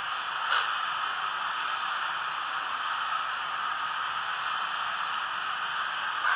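Steady hiss like static, with a short faint sound about half a second in.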